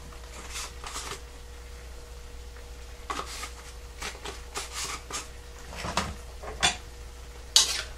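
Adobo seasoning shaken from a shaker bottle over a wok: short rattling shakes in small clusters, with a few sharper knocks as the bottles are handled.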